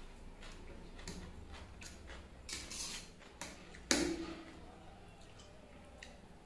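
Metal fork scraping and clinking against a steel plate as chow mein noodles are twirled up, in a run of small clicks; the loudest is a sharp, briefly ringing clink about four seconds in.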